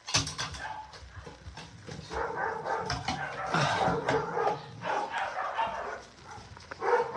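A puppy whimpering and yipping for a few seconds, starting about two seconds in. At the very start there are a few sharp knocks as a food can is tapped against the tray.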